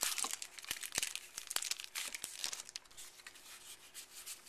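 Foil wrapper of a World of Warcraft trading-card booster pack crinkling as it is handled and opened, a dense run of crackles that thins out after about two and a half seconds.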